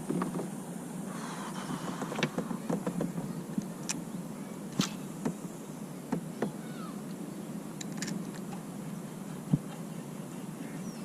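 Scattered light knocks and clicks of fishing gear on a kayak over a steady low background of moving water, with a short chirp or two.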